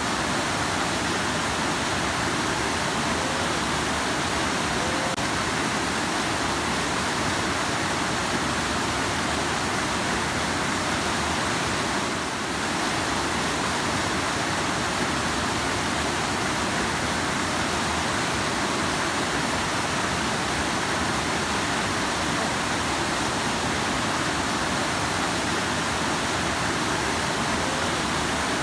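A rushing river: fast-flowing water making a steady, even rush.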